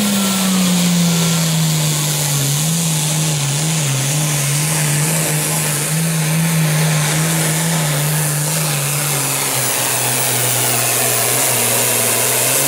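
Turbocharged diesel engine of a Limited Pro Stock pulling tractor running hard under load as it drags the weight sled. Its pitch sags over the first couple of seconds, wavers, then drops lower about ten seconds in as the engine is pulled down by the building load.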